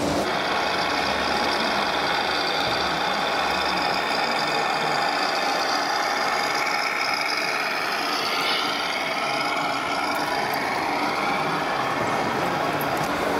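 Radio-controlled model trucks running, a steady mechanical running sound. Whining tones glide up and down about halfway through.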